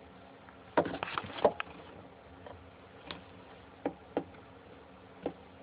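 Metal feeding tongs clicking and tapping: a quick cluster of taps about a second in, then a few single clicks spaced about a second apart.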